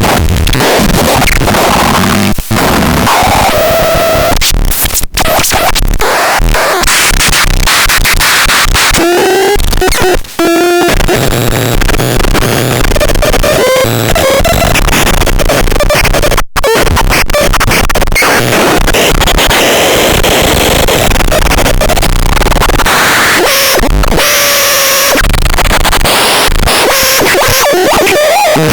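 VRTLOCH noise synthesizer putting out loud, harsh noise with warbling tones that glide up and down in pitch, cutting out for an instant a few times.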